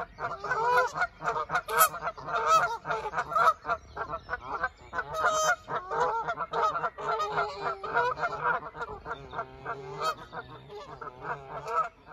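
A flock of geese honking incessantly, many calls overlapping without a break, until the sound cuts off suddenly at the end.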